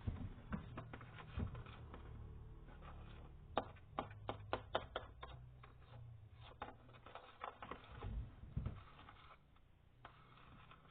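A spoon stirring slime mixture in a bowl, scraping and clicking against its sides, with a quick run of about eight clicks a few seconds in.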